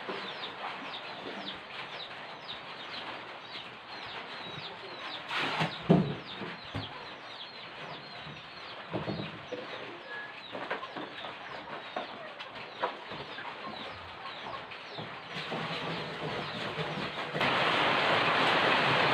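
Birds chirping steadily, with scattered knocks and thuds of plastic jerrycans being handled, the loudest about six seconds in. Near the end, water rushes from a tipped jerrycan into a plastic drum.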